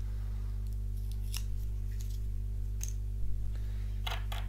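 A few faint clicks and rustles of a new tarot deck and its paper band being handled, over a steady low electrical hum.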